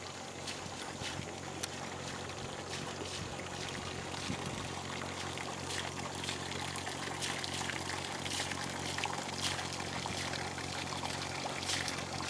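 Water trickling and splashing in small irregular drips and plops, over a steady low hum.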